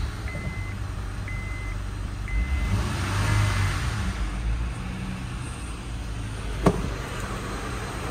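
2009 Honda Odyssey's 3.5-litre V6 idling just after being started, heard from inside the cabin. A dashboard chime beeps four times, about once a second, over the first few seconds, and a single sharp click comes near the end.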